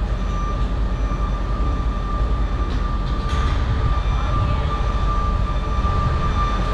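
A steady mechanical rumble with a constant high whine running through it.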